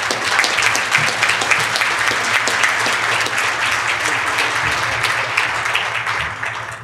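Audience applauding, a dense patter of many hands clapping that thins and fades near the end.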